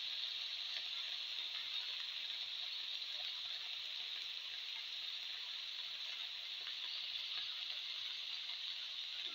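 Tomatoes and oil frying in a pan under a fresh heap of green and red spinach leaves: a steady, even sizzle with a few faint crackles.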